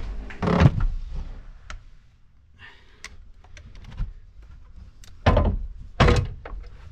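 Heavy thuds and knocks of a 120 Ah battery in its carry box being shoved into place behind a ute's rear seat: two loud thuds near the start, a short scrape about halfway, and two more thuds near the end.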